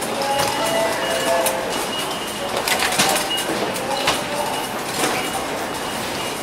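Train running, a steady rumbling noise with scattered clicks and knocks.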